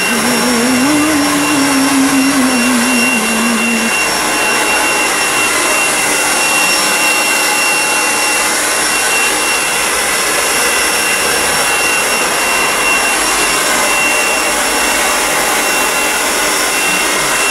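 Hand-held hair dryer running steadily: a constant rush of air with a thin high whine through it.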